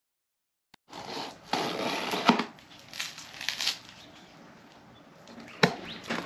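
Crinkly packaging being handled and rustled, starting about a second in and loudest for the first few seconds, with a couple of sharp knocks near the end.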